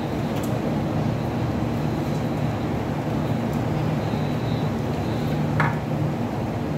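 A steady low hum of room machinery, with a few faint clicks and one brief clink about five and a half seconds in.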